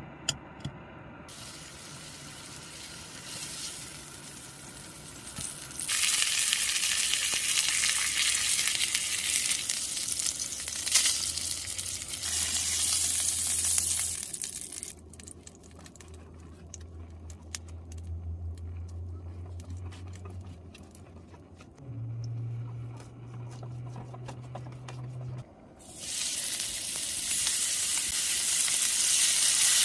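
Food sizzling and frying in a hot pan. The sizzle starts about six seconds in, dies down to a faint crackle around fourteen seconds, and comes back loud near the end, over a low steady hum. Two light clinks sound just after the start.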